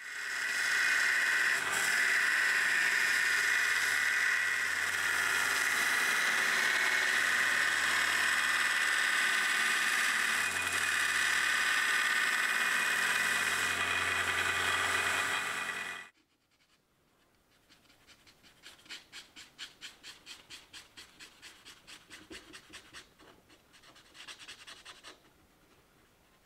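Small bandsaw running and cutting a knife blank out of 80CrV2 carbon steel: a loud, steady whine that stops suddenly about two-thirds of the way through. After that come quieter rhythmic rubbing strokes, about four a second, as a felt marker is scrubbed along the steel blank.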